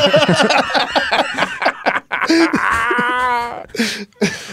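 Men laughing hard, mixed with garbled high-pitched voicing in a mock Donald Duck impression.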